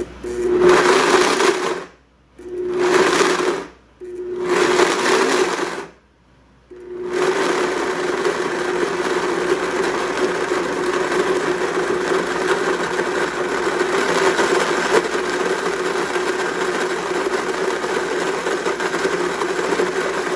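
Electric blender pulsed three times in short bursts, then run continuously, puréeing raisins with grape juice.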